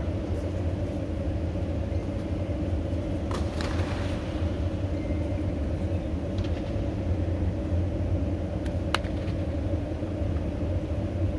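Motor vehicle heard from on board while driving: a steady engine and road rumble, with a few faint clicks.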